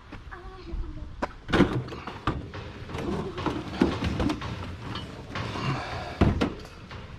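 Irregular knocks, bangs and clatter of hard objects being handled and moved about, with several sharp bangs spread through.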